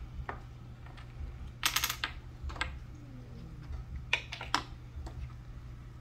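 Wooden toy play-kitchen pieces knocking together: small wooden cups and play cookies clacking as they are handled and set down against a wooden toy coffee maker and tabletop. The taps come singly and in short clusters, the busiest about two seconds in and again around four seconds in, over a steady low hum.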